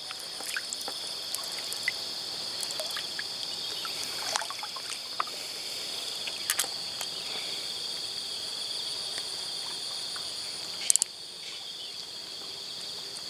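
A steady, high-pitched insect chorus, with scattered small clicks and a short cluster of them about eleven seconds in.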